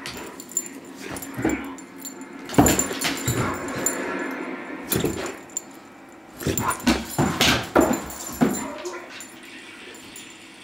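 Great Dane whining and giving short yips to get attention, with a few sharp knocks among them.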